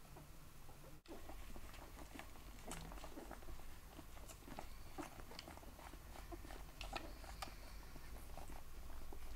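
Newborn puppies suckling at their mother's teats, making faint, scattered small clicks and smacks.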